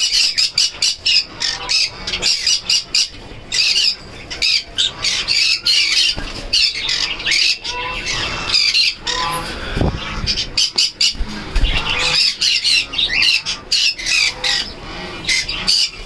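Many caged small parrots — cockatiels, conures and budgerigars — calling at once: a continuous, loud din of overlapping squawks and chirps.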